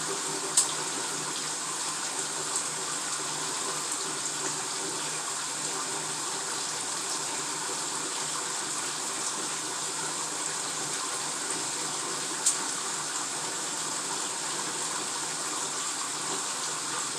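Bathtub filling from the tap: a steady rush of running water into the tub. Two short sharp clicks cut through it, one about half a second in and one about twelve seconds in.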